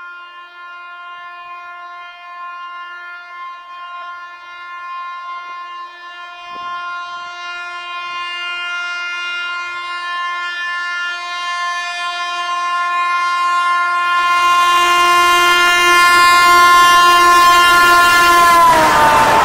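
An electric locomotive's horn is held in one long continuous blast as the train approaches at high speed, growing steadily louder. About three-quarters of the way through, the rushing noise of the passing train joins in. Near the end the horn's pitch drops sharply as the locomotive passes.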